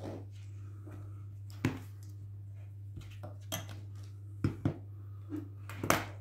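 A handful of sharp knocks and taps, spaced irregularly, as a glass jar of talc and a metal band-tying jig are handled on a table, over a steady low hum.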